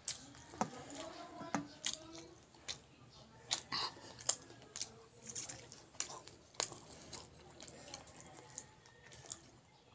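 Close wet chewing of sticky rice cake (ibus) dipped in vinegar, with irregular sharp lip smacks and mouth clicks.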